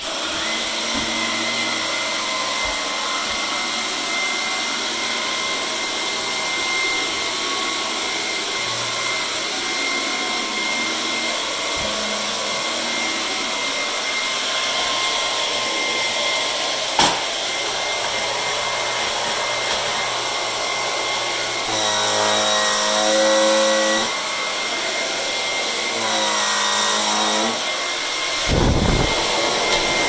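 Cordless stick vacuum cleaner switched on and running steadily with a high whine while sucking at a toilet bowl. Twice, for a couple of seconds each, its pitch changes, and there is a sharp click partway through and a few knocks near the end.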